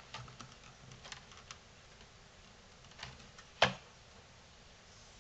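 Light clicks and taps of the plastic casing of a JBL boombox being handled and pulled apart, several small ones early, then one sharper click about three and a half seconds in.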